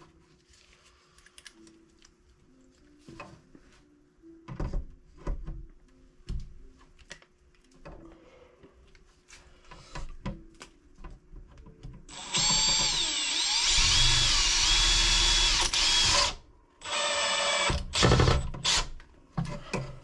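Faint knocks and handling clicks, then a cordless power tool's motor runs loudly with a wavering whine for about four seconds, stops, and runs again in a shorter burst.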